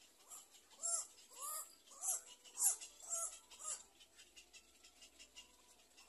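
A run of about six short, harsh animal calls, each rising and falling in pitch, about half a second apart, then stopping, over faint ticking.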